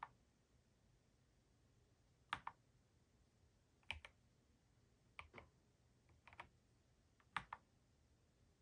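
Single key presses on an EPOMAKER Shadow-X mechanical keyboard: about five separate presses spaced one to two seconds apart. Each is a short, sharp click, most with a quick down-and-up double tap.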